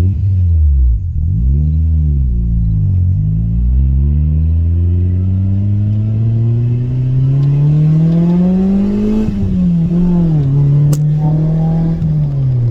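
Honda B16A DOHC VTEC four-cylinder engine in a Civic accelerating hard through the gears. The revs dip and rise twice, then climb in one long pull for about five seconds before falling sharply at a gear change and holding steady near the end.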